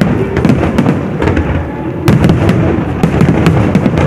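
Aerial fireworks going off in rapid succession: a dense, irregular string of sharp bangs and crackles over a continuous low rumble.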